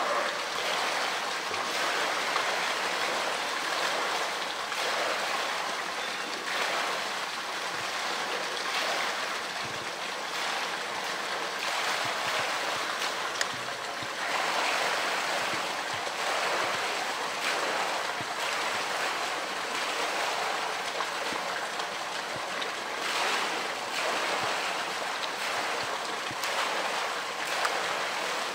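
Steady rush of water in a polar bear's pool, swelling now and then as the bear swims and shoves a floating blue plastic tank through it.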